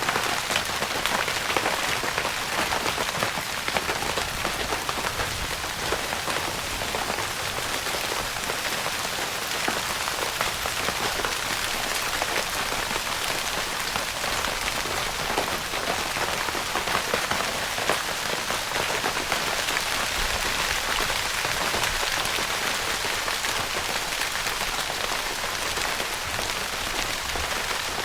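Steady rain pattering on the fabric of a tent, a dense hiss of many drops with no let-up.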